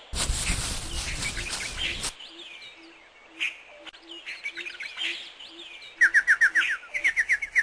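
Bird chirps and twittering. A burst of rushing noise lasts about two seconds at the start, and a fast run of loud, rising chirps comes near the end.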